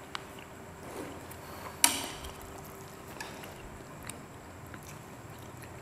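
Quiet eating sounds at a table: faint clicks of forks and skewers on a plastic food plate, with one sharper utensil click about two seconds in.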